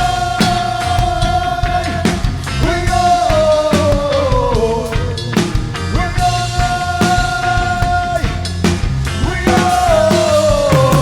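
Live reggae band playing, with drums and bass under a melody line that holds one high note, then slides downward, twice over.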